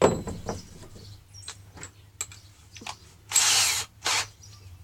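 Clicks and clatter from a power drill's chuck as the drill bit is swapped out, starting with a sharp knock and ending with a short rasping ratchet of the chuck about three and a half seconds in.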